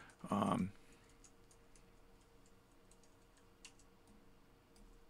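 Faint, irregular clicking of a computer keyboard, scattered single clicks a fraction of a second to a second apart.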